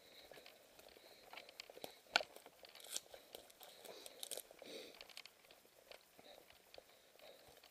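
Mountain bike rolling down a dirt forest trail: tyres crunching over the ground with scattered sharp clicks and rattles from the bike, the loudest about two seconds in.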